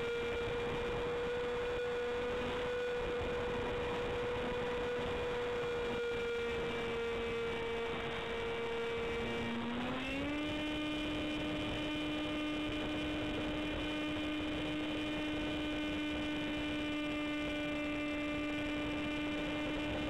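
Electric pusher motor and propeller of an F-27Q Stryker flying wing, heard from its onboard camera in flight: a steady whine that sags slightly, then steps up in pitch about ten seconds in as the throttle is opened and holds there.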